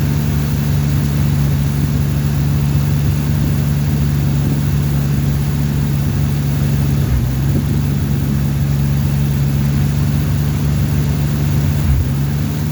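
Jeep Cherokee engine idling steadily, with a slight miss that the owner puts down to fuel.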